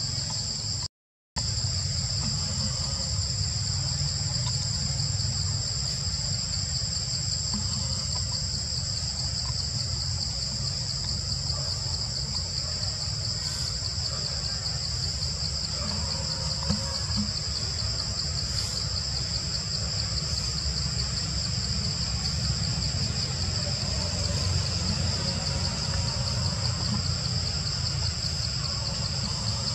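Steady, high-pitched insect chorus with a fast pulsing texture over a low rumble. The sound cuts out briefly about a second in.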